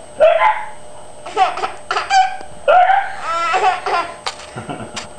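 Baby laughing in a string of giggling bursts, amused by an adult's hiccups, with two short sharp clicks near the end.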